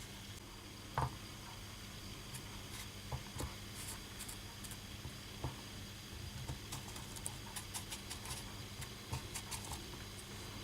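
Faint scattered taps and rustles of a toy cat being handled on litter sand in a plastic litter box, with one sharper click about a second in.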